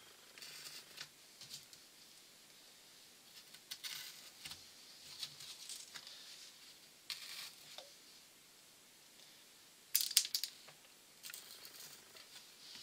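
Pins being picked up and pushed into a balsa fuselage side to hold it while the glue dries: scattered small clicks, taps and rustles, with the loudest cluster of clicks about ten seconds in.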